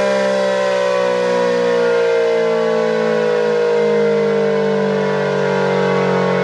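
ACA P-10 electromechanical outdoor warning siren sounding during a test, its tone sliding slowly and steadily down in pitch.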